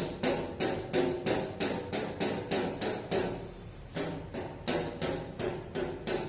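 Sharp taps at an even pace, about three a second, each with a short ringing tone after it.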